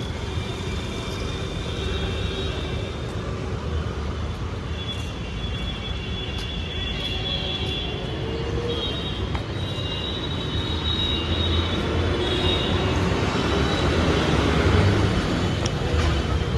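Road traffic noise: a steady rumble of vehicle engines and tyres, with a thin high tone coming and going above it and growing a little louder toward the end.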